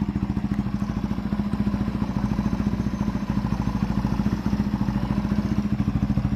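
Kawasaki Barako 175's single-cylinder four-stroke engine, freshly overhauled and rebored, idling steadily with an even, rapid putter of about ten beats a second. Its owner calls it smooth-running.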